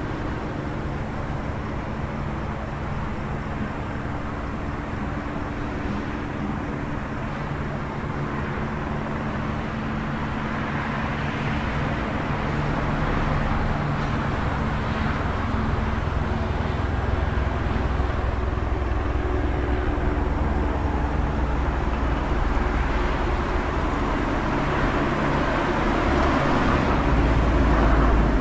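City traffic ambience: a steady wash of road noise with the low hum of engines, swelling louder through the second half as heavier vehicles pass close.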